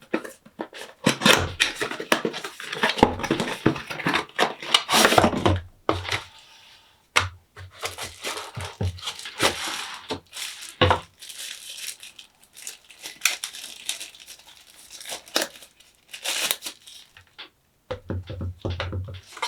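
Product packaging torn and crinkled by hand during an unboxing, in irregular bursts of tearing and rustling with sharp handling clicks and knocks.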